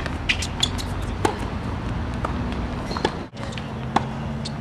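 Tennis rally on an outdoor hard court: sharp racket-on-ball cracks and ball bounces, the strongest about a second in, with shoe scuffs over a steady background hiss. The sound drops out for an instant a little after three seconds in, and a low steady hum follows.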